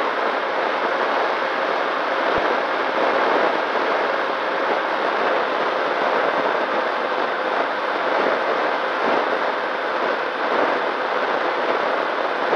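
Onboard audio of a ZOHD Nano Talon FPV plane in cruise flight: a steady rush of wind over the airframe, with a faint, even whine from its electric motor and propeller.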